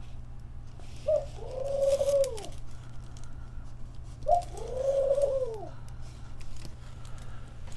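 A dove cooing twice, about a second in and again about four seconds in: each call a short note followed by a longer arched coo lasting about a second. A steady low hum runs underneath.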